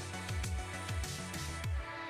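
Electronic background music with a steady kick-drum beat and crisp high percussion; the beat stops just before the end, leaving a softer held chord.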